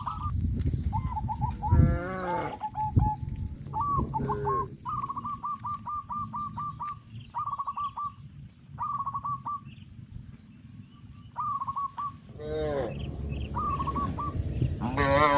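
Cattle mooing, about four long calls spread through the stretch. Between them a bird gives short runs of rapid, repeated high notes.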